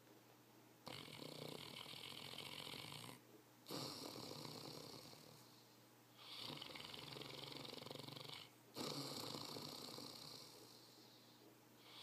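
Saint Bernard snoring in its sleep: four long snores of about two seconds each, coming in two pairs with a short gap inside each pair, the second snore of each pair fading away, and another snore starting near the end.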